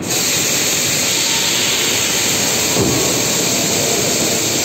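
Loud, steady rush of hissing air from industrial machinery, cutting in abruptly.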